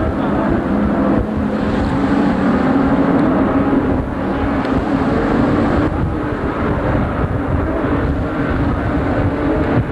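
Distant offshore racing powerboats running flat out: a steady engine drone over a rough low wind rumble on the microphone.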